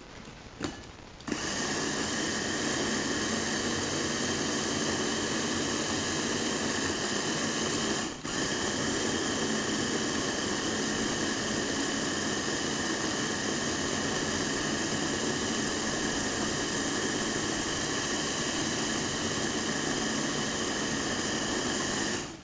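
Electric mini food chopper's motor running steadily, with a whining hum, as its blades chop red chillies in a glass bowl. It starts about a second in, breaks off for a moment around eight seconds, and stops near the end.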